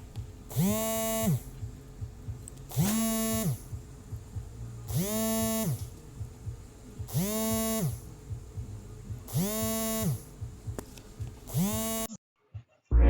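Phone vibrating for a call: six short buzzes of the vibration motor, about one every two seconds, each spinning up and winding down.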